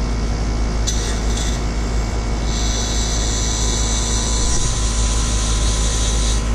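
Refrigerant hissing through the charging hose into a running air conditioner: a short hiss about a second in, then a steady hiss for about four seconds from two and a half seconds in, over the steady hum of the outdoor condensing unit. Gas is being added because the superheat is a little high, a sign that the system is slightly undercharged.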